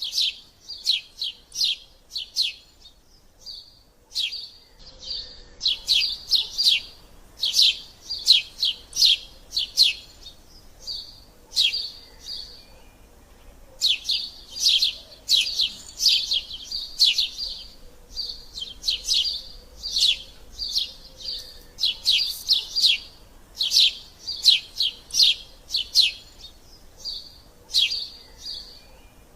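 Eurasian tree sparrow chirping loudly and excitedly: quick runs of short, sharp chirps, several a second, broken by brief pauses.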